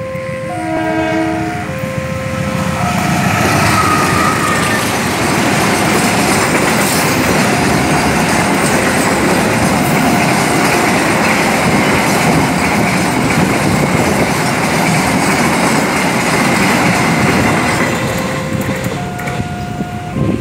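Container freight train hauled by a CC 203 diesel-electric locomotive passing close by: a short horn sound about a second in, then the steady rumble and clatter of the flat wagons over the rails, easing near the end. Throughout, the level-crossing alarm repeats its alternating chime tones.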